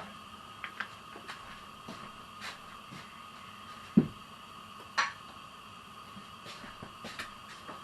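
Kitchen clatter of utensils and containers: scattered light clicks and knocks, with a louder thump about four seconds in and a sharp clack a second later, over a steady faint high hum.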